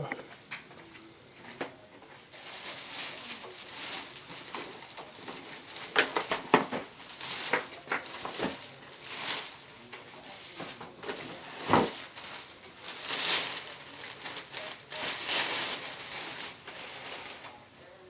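Clear plastic bag crinkling and rustling as it is handled around a vacuum cleaner, with a few sharp clicks and knocks along the way.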